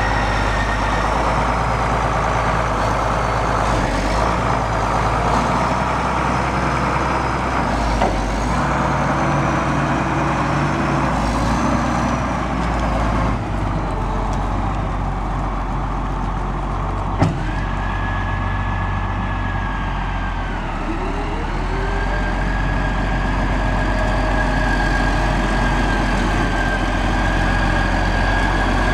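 Case 2670 four-wheel-drive tractor's Case 504 six-cylinder diesel engine running steadily as the tractor drives on the road. A high whine sits over the engine note, fading and then coming back stronger just past halfway. There is one sharp click a little past the middle.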